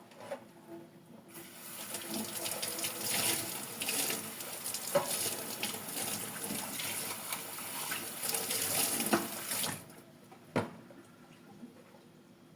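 Kitchen tap running into a sink, turned on a little over a second in and shut off near ten seconds, with small clinks and knocks of dishes being handled under the stream. A single sharp knock follows shortly after the water stops.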